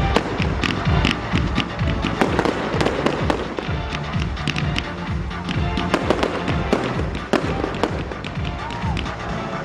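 Fireworks display: a rapid, irregular series of bangs and crackling shell bursts, with loud music playing alongside.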